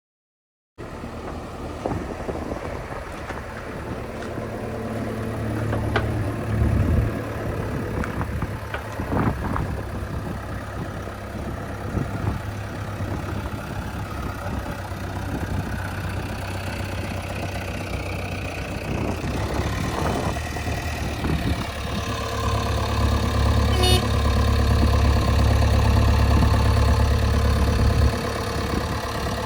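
Heavy diesel machine engine running steadily at low revs, starting suddenly just under a second in. A few sharp knocks come in the first third, and the engine is louder for a stretch near the end.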